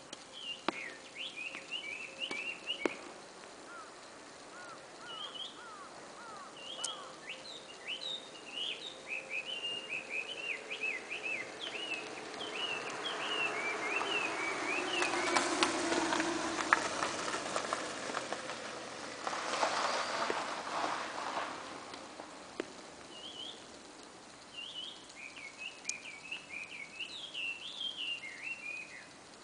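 Small birds chirping and twittering in quick bursts of short high notes. In the middle a broad rushing noise with a low, slowly falling hum swells up and fades away, like something passing by.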